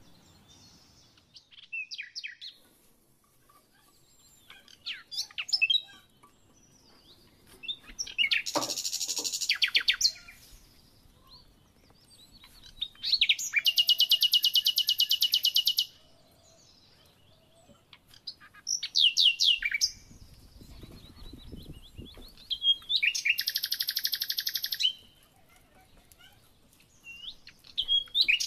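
Songbirds singing in bouts of high chirps and fast, rattling trills, each bout one to three seconds long with short quiet gaps between them.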